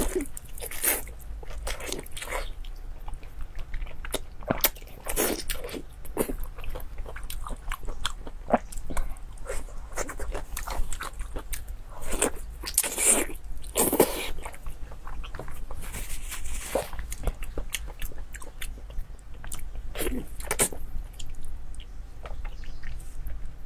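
Close-up wet eating sounds: biting, sucking and chewing of soft, saucy braised offal, with irregular smacks and slurps, the loudest cluster about twelve to fourteen seconds in.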